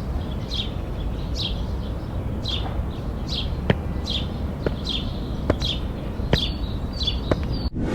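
A bird repeating a short, downward-sliding chirp about once a second over a steady low rumble of background noise, with a few sharp clicks in the second half; it all cuts off suddenly just before the end.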